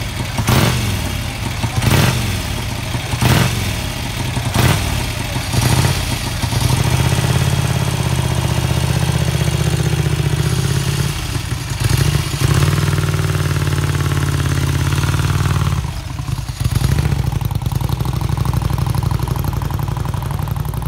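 Vincent HRD V-twin motorcycle engine being revved in sharp throttle blips about every second and a half, then running steadily from about seven seconds in, with a couple of brief changes in speed.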